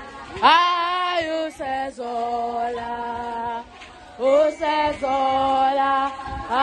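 Voices singing a chant-like song in long held notes, each phrase sliding up into its first note.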